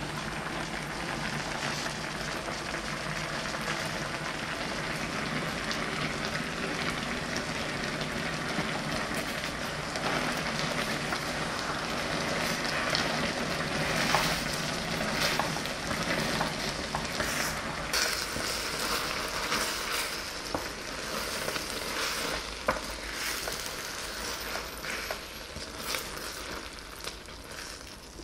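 Thick gochujang tteokbokki sauce bubbling and sizzling as it simmers in the pan with rice cakes, noodles and eggs, boiling down until it turns sticky. Sharper pops and crackles come through in the second half.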